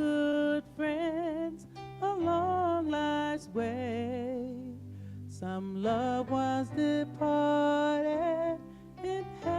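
Gospel worship song: a singer holds long notes with vibrato over a steady bass line and instrumental backing.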